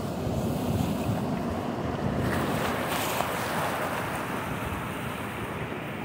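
Surf washing over a rocky shoreline, with wind buffeting the microphone; a louder rush of water swells about two seconds in and dies away.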